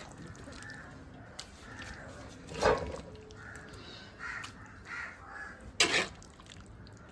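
Crows cawing, several short calls, two of them louder than the rest.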